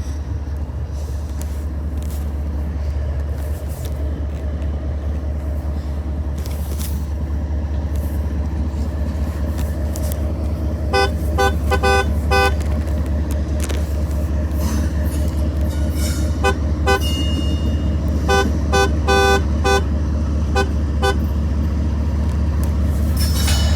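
Car horn honked in groups of short toots, starting about halfway through, over a steady low hum.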